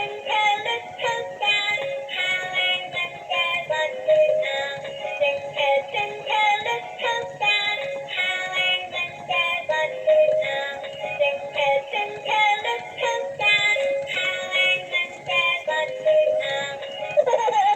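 A cheerful tune of short, quick notes with a synthesized singing voice, sounding like a small electronic speaker.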